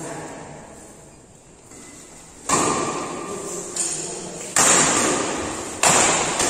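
Badminton rackets striking a shuttlecock in a rally: four sharp hits, the first about two and a half seconds in, each ringing on in the echo of a large hall.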